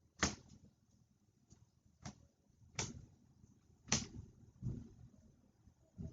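Trading card packs and cards being handled on a table: a series of sharp snaps and taps, about six spaced irregularly a second or so apart.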